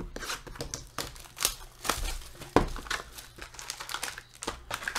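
Wrapper and cardboard of a trading-card hobby box crinkling and tearing as the box is opened and its packs are handled, a busy run of sharp crackles with a few louder snaps.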